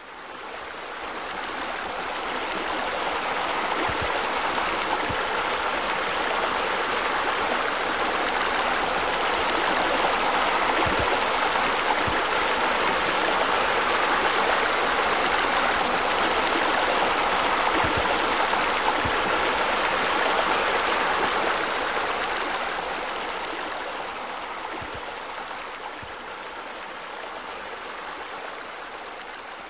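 Steady rush of falling water, as of a waterfall pouring into a pool. It swells in over the first few seconds and eases off over the last several.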